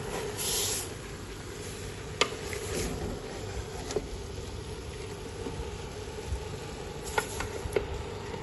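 Raw chicken pieces and sliced onions being stirred with a spatula in a hot steel pot, with a low sizzle and shuffling, and a few sharp knocks of the spatula against the pot.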